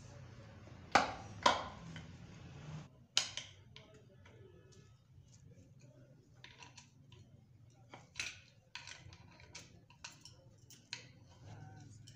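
Steel hand tools clinking against the oil pump of a Toyota A245E automatic transmission as its 10 mm bolts are worked loose with a T-handle socket wrench. Three sharp clanks come in the first three seconds, then lighter scattered clicks.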